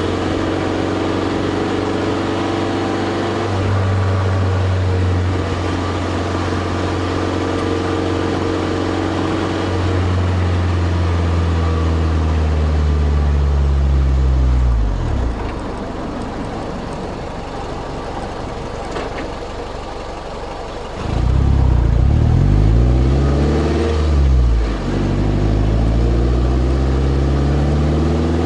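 Toyota MR2 Spyder's 1ZZ 1.8-litre four-cylinder heard close to the tailpipe through a titanium cat-back exhaust with a deep tone. It cruises at a steady pitch and the pitch falls away as it slows. After a quieter spell the engine accelerates hard, its note rising, dropping briefly at a gear change, then rising again.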